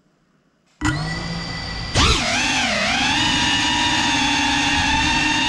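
FPV drone's motors and propellers start up suddenly about a second in with a steady whine, then jump louder a second later as throttle is added for takeoff. The pitch dips and swings briefly, then holds steady.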